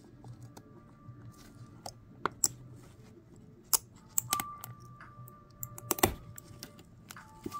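Pliers snapping printed PLA support material off a 3D-printed figure: a run of sharp cracks and clicks as pieces break away, denser from about two seconds in and loudest about six seconds in. Faint low-fi music is underneath.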